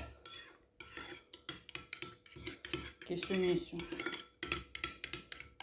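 Cutlery and dishes clinking at the table: many short, irregular knocks and clinks of spoons and forks against plates and bowls.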